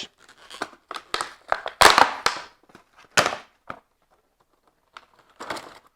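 Product packaging being opened by hand: an irregular run of crinkles, snaps and tearing, longest about two seconds in.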